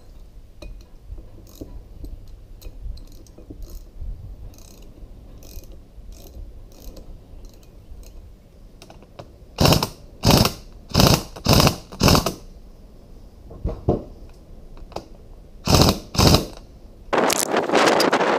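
Pneumatic impact wrench hammering in short bursts on a socket and extension on the hydraulic lift cylinder: five bursts in quick succession about halfway through, a weaker one, then two more. Light clicks come before the first burst. Wind noise on the microphone takes over near the end.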